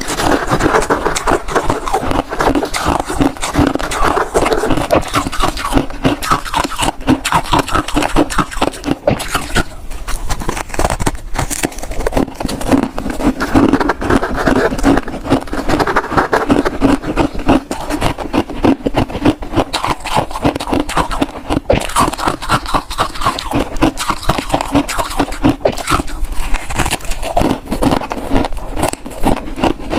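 Close-miked chewing of freezer frost: a fast, unbroken run of crisp crunches.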